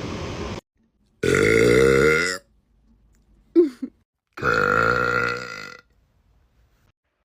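A woman burping deeply: two long, drawn-out burps, each over a second long, about three seconds apart. A steady hiss cuts off about half a second in, and a short sound comes between the burps.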